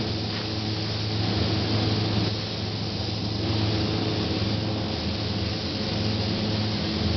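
Steady machine hum with a strong low drone and an even hiss of rushing air, from the equipment spraying clear coat on a car. It runs without a break, with only slight swells in the hiss.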